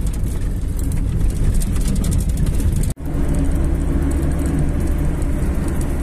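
Road noise inside a moving car: a steady engine and tyre rumble. On the dirt road it carries many small ticks and knocks. It drops out for an instant about three seconds in, then returns as a smoother, steadier hum on pavement.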